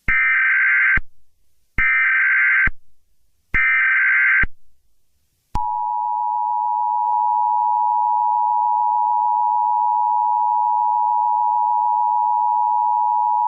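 Emergency Alert System header: three short bursts of SAME digital data screech, about a second each, then about five and a half seconds in the steady two-tone EAS attention signal starts and holds, announcing an emergency alert.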